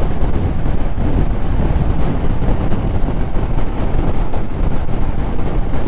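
Steady wind rush buffeting the microphone of a rider on a moving BMW K1200RS motorcycle, with the bike's engine and road noise underneath, holding an even level at cruising speed.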